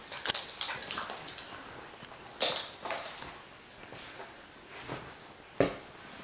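A Lhasa Apso in a plastic cone collar moving about, making a run of irregular knocks and short scrapes as the cone bumps and drags against the floor and rug. A louder scrape comes about two and a half seconds in, and a sharp knock near the end.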